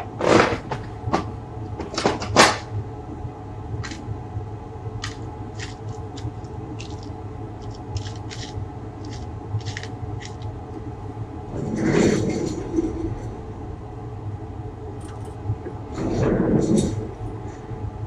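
Small tools and hardware handled on a workbench: a few sharp knocks in the first couple of seconds, then scattered light clicks, and two longer rustling, scraping bursts about 12 and 16 seconds in, over a steady low hum.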